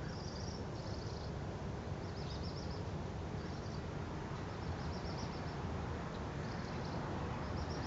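Small birds chirping in short high bursts about once a second, over a steady low background rumble.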